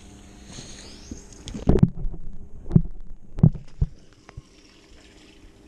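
Clogged flat-roof drain giving a few deep, low glugs between about one and four seconds in.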